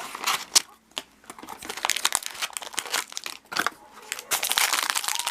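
Toy packaging being crinkled and torn open by hand: irregular crackling and ripping with sharp snaps, pausing briefly about a second in.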